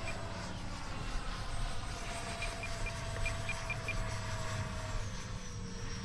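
Electric ducted fan of a Freewing Intruder RC jet, an AvantiS v2 fan and motor, whining steadily in flight just after takeoff; its pitch drops a little about five seconds in. Midway there is a quick run of short beeps from the radio transmitter as the trims are adjusted.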